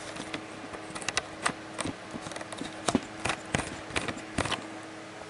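Camera handling noise: a scatter of irregular clicks and knocks as the handheld camera is moved around, over a steady low hum.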